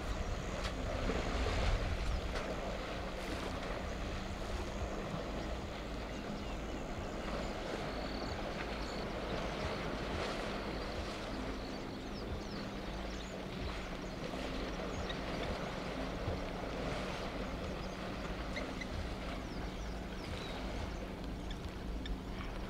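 African elephants wading and splashing in a dam: a steady wash of moving water, with wind rumbling on the microphone. A few faint high chirps sound now and then.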